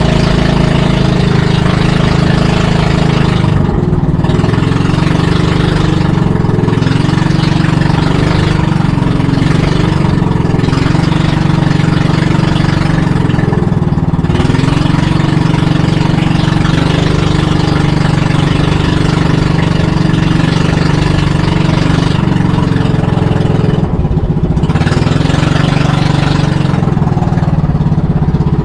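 Motorized outrigger fishing boat's engine running steadily and loudly under way, with the hiss of water and spray along the hull.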